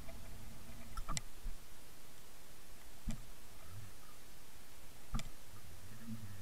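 Muffled underwater rumble with three sharp clicks, about two seconds apart.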